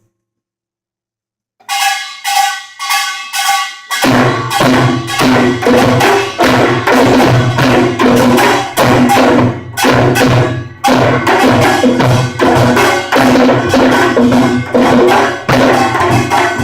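Korean pungmul percussion band starting up: after a moment of silence, a few ringing strikes sound alone, then about four seconds in the full ensemble of gongs and drums comes in with a loud, fast, driving rhythm. Phone recording with rough sound quality.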